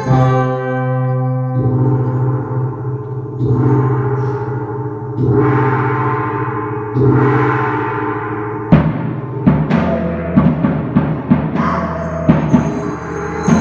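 Live traditional Dayak ensemble music: hanging bossed gongs struck about every two seconds and left ringing, then from about nine seconds in, quick drum strokes come in over them at several beats a second.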